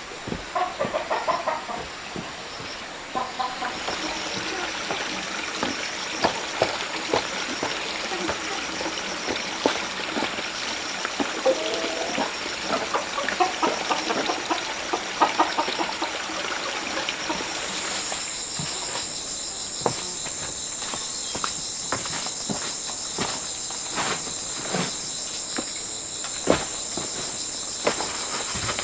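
Chickens clucking in short calls, mostly in the first half, over an outdoor background. About two-thirds of the way through, a steady high insect drone of cicadas or crickets sets in. Scattered sharp clicks and knocks run through it all.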